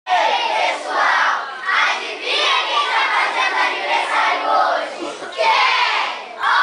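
A large children's choir singing together in unison, in phrases of about a second each, many young voices at once.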